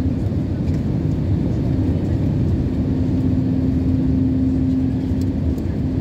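Steady engine and airflow noise inside a jet airliner's cabin during its descent for landing: an even low rumble with a steady hum that drops out for about a second near the start.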